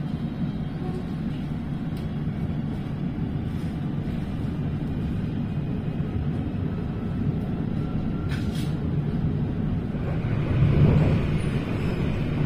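Steady low rumble of a Euskotren train running along the rails, heard from inside the carriage, swelling louder shortly before the end, with a few faint clicks.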